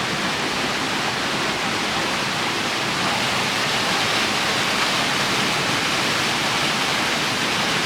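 Steady rush of river water pouring through the Devil's Punchbowl gorge, an even hiss with no breaks.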